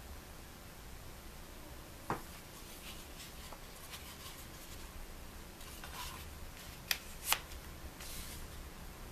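Faint handling sounds as a puukko knife is slid into its leather-and-wood sheath: a single click, light scraping and rustling, then two sharp clicks close together about seven seconds in.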